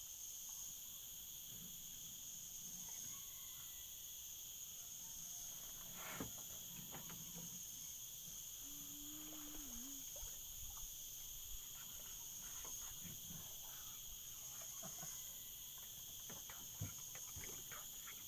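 Steady high-pitched drone of insects, a chorus of crickets or cicadas in several unbroken bands, with scattered small clicks and knocks, a sharper one a little after six seconds and a cluster near the end.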